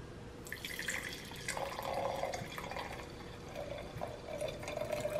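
White wine poured from a bottle into a stemmed wine glass, starting about half a second in: a continuous splashing trickle as the glass fills.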